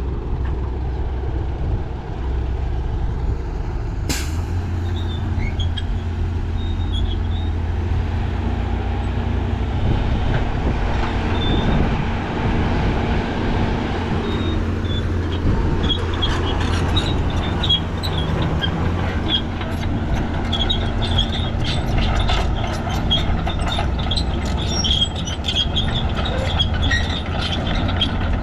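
Heavy diesel engines of Caterpillar crawler excavators and a dump truck running with a steady low drone. There is a sharp click about four seconds in. From about halfway a quick run of high metallic squeaks and clicks joins in.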